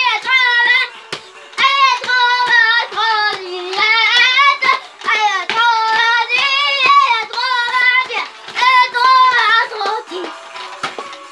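French children's song with child singers over a steady beat; the singing breaks off near the end.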